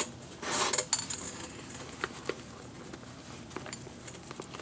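Leather lace being drawn through the lacing holes of a Mizuno baseball glove's trap-eze web. Within the first second or so come a few short hissing swishes as the lace slides through the leather, then several light ticks and handling rustles as the glove is worked.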